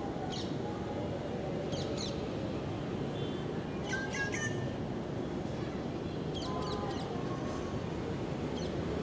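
Rufous treepie calling: short clusters of chirping notes repeated every couple of seconds, over steady background noise.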